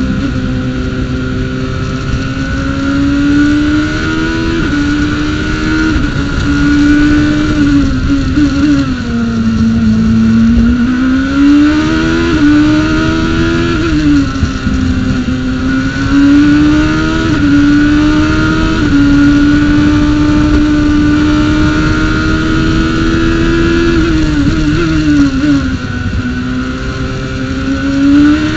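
Formula Atlantic race car's engine at speed, heard from the car itself, rising in pitch under acceleration and dropping sharply at each gear change, easing off and slowing for corners before pulling up through the gears again.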